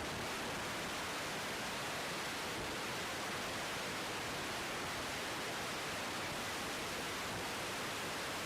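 Steady, even hiss with no engine tone or other events: the background noise of the air traffic control radio feed between transmissions.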